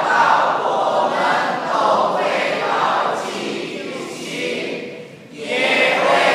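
A mixed group of young men's and women's voices singing together as a choir, with a short break about five seconds in before the next phrase starts.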